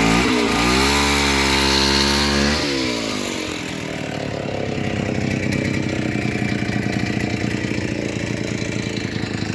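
An engine revs up, holds high for about two seconds, then drops back to a steady, pulsing idle.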